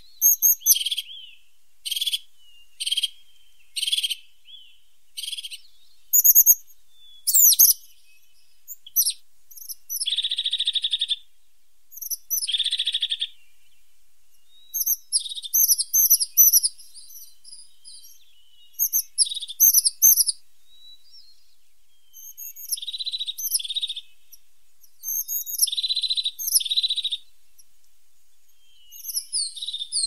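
Crested tit calling: short, high, thin notes about once a second at first, then clusters of quick sliding notes mixed with several buzzy, rolling trills.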